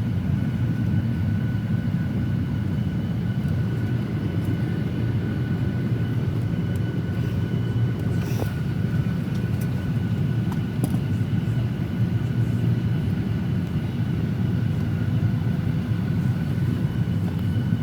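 Steady rushing cabin noise inside a Boeing 737-800 parked before pushback, from the cabin air-conditioning and ventilation, with a thin steady whine above it. A few faint clicks come about halfway through.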